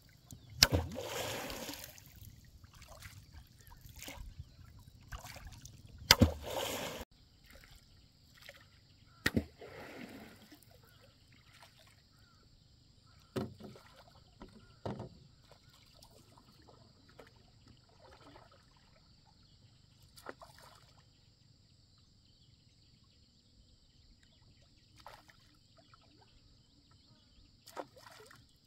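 Fish flapping and splashing in a shallow puddle of muddy water, two loud splashy bursts in the first seven seconds. Then scattered soft knocks and sloshes of a wooden paddle working a small bamboo boat on calm lake water, with a faint steady high-pitched hum behind.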